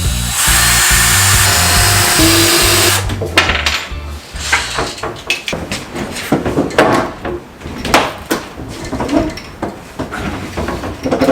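Power drill running for about three seconds, then irregular knocks and clatter of wooden cabinet parts being worked on, over background music with a stepping bass line that fades out after about four seconds.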